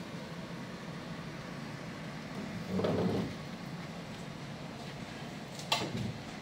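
Steady onboard hum of a passenger ferry, with a brief dull thud about halfway through and a sharp knock near the end.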